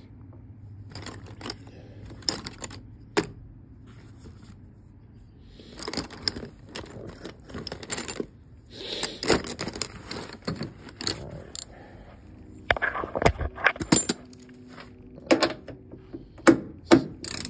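Loose metal sockets and wrenches clinking and jangling in bursts as hands rummage through a soft tool bag. Near the end a hand ratchet clicks as it turns a bolt.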